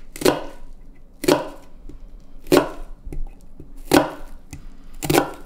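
Kitchen knife chopping a red onion on a wooden cutting board: five sharp knocks about a second apart as the onion is diced very small.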